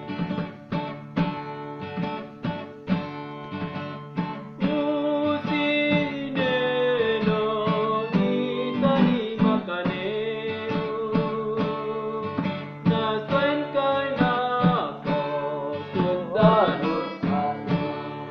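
Acoustic guitar strummed with a steady rhythm, accompanying a singer whose voice comes in about four to five seconds in and carries the melody over it.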